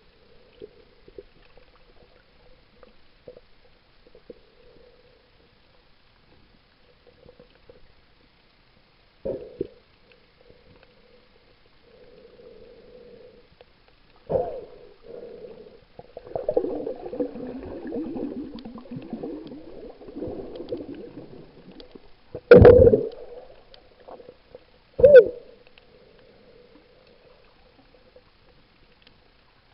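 Muffled underwater sound picked up through a camera's waterproof housing: four dull thumps, the loudest about two thirds of the way in, and a rough, wavering noise for several seconds before it.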